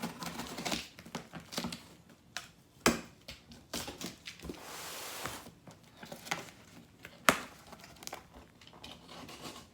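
Cardboard box being handled while its packing tape is cut and torn with a knife: scattered sharp knocks and taps, with a longer tearing hiss about halfway.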